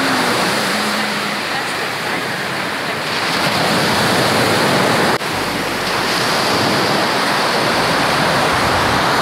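Sea surf breaking and washing up a sandy beach: a loud, steady rush of waves. About five seconds in, the sound cuts abruptly to another stretch of surf.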